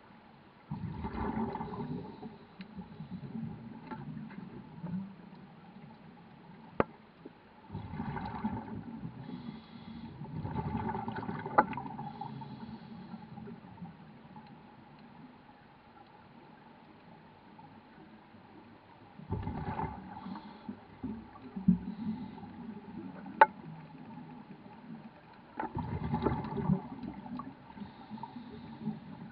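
Scuba diver's exhaled bubbles from a regulator, heard underwater: five bursts of bubbling, each one to three seconds long, a few seconds apart with a breath's rhythm, plus a few sharp single clicks in between.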